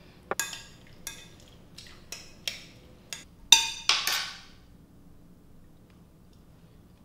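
A spoon clinking and tapping against a glass jar and a glass bowl while chili paste is scooped out and stirred into carrots: a run of sharp clinks over the first four seconds or so, the loudest about three and a half seconds in.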